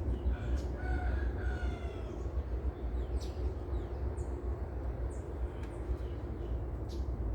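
A rooster crows once near the start, a call of about two seconds, followed by short high bird chirps over a steady low rumble.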